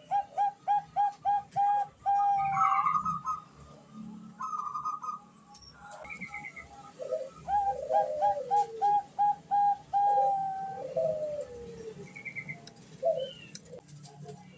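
Zebra dove (Bangkok perkutut) cooing: two runs of rapid, evenly spaced short notes, each ending in a longer drawn-out note. This is a female's call, used to lure a male.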